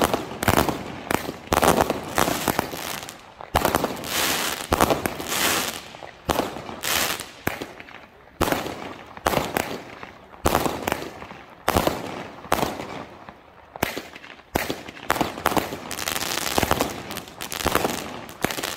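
Fireworks going off: an irregular series of sharp bangs, several a second, each trailing off briefly.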